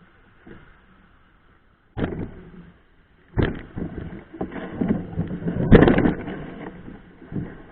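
Mountain bike jolting over a rough trail: a quiet start, then loud, irregular knocks and rattles from about two seconds in.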